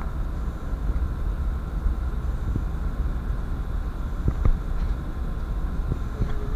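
Steady low rumble of a ship's engine-room machinery running, heard inside the engine control room, with a couple of faint clicks.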